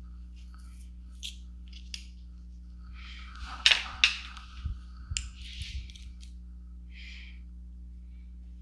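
Scissors cutting fabric: a few sharp snips and rustles, clustered about halfway through, over a steady low electrical hum.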